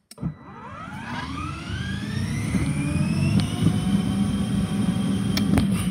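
Electric drive motor of a battery-powered ride-on toy police car whining up in pitch as it pulls away, then running at a steady pitch, with a low rumble under it as the car drives. A couple of sharp clicks near the end.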